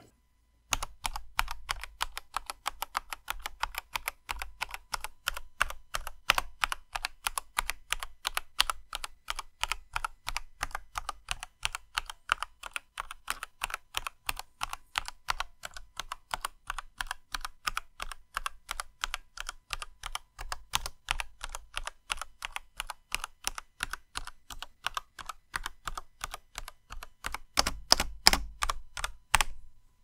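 Typing on a Qeeke CR840 mechanical TKL keyboard fitted with soldered-in Huano Red linear switches: a fast, continuous run of keystroke clacks, with a louder flurry near the end.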